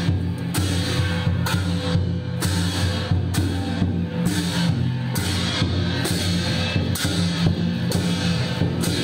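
Drum-led music with a steady beat: a sharp strike that reaches into the highs comes a little less than once a second, over a steady low drone.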